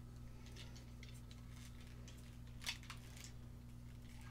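Plastic parts of a Transformers action figure clicking and scraping faintly as it is handled and a panel tab is worked into a slot, with one sharper click a little after halfway. A steady low electrical hum runs underneath.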